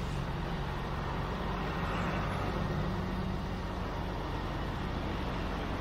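A vehicle engine running at a steady idle, a low even hum, with the noise of street traffic swelling briefly about two seconds in.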